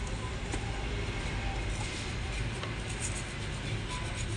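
A few faint metallic clicks and light scraping from hand work on a tractor's brake housing, over a steady low hum.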